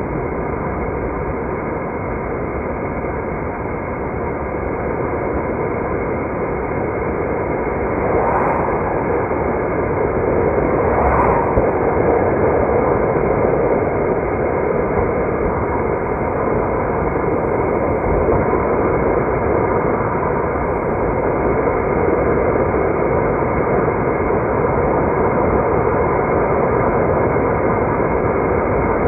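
Steady road noise of a car being driven: tyre rumble and engine drone with a faint hum. It grows a little louder about eight seconds in, with two brief swells about eight and eleven seconds in.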